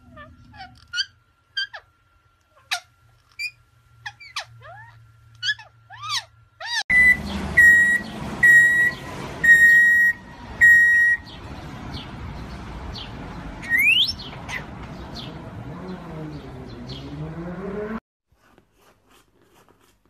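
Indian ringneck parakeets giving short sharp chirps and gliding whistles. Then, over street noise, come five loud evenly spaced beeps about a second apart and a single rising whistle.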